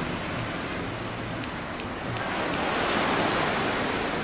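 Jet engine roar from a landing Boeing 777 on short final, swelling to its loudest about three seconds in as the airliner passes close. Underneath runs a steady rush of wind.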